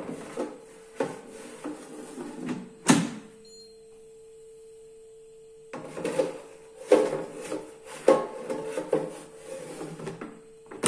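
Two metal baskets of an Instant Vortex Plus dual air fryer sliding into their drawers, scraping and knocking, each pushed home with a sharp click: the first about three seconds in, the second at the end. A steady hum runs underneath.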